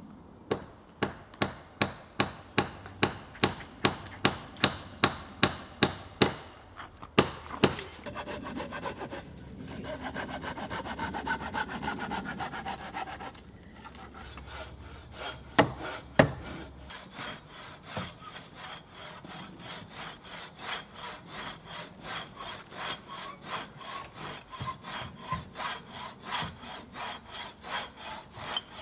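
Hand saw cutting through a log in steady back-and-forth strokes, about two a second, with a faster, denser run of strokes a few seconds in. Two sharp knocks of wood midway, then the sawing carries on.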